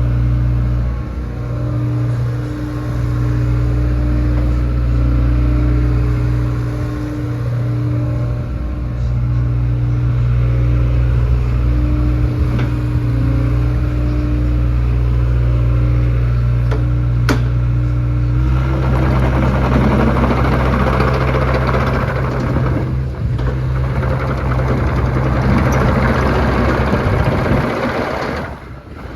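Diesel engine of a 2021 Hitachi ZX85USB-6 excavator running steadily. About two-thirds of the way through, a louder rushing noise joins the engine and stays until just before the end, when it drops away.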